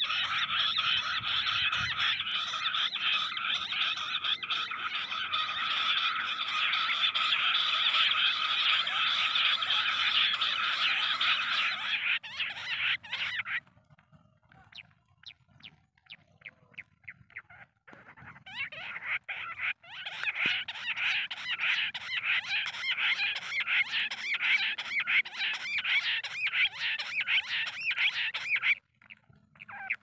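Recorded bush quail call played as a lure through a small loudspeaker: a dense, rapid chattering trill. It breaks off about 13 seconds in, leaving a few scattered short chirps, then resumes about 18 seconds in and cuts out briefly near the end.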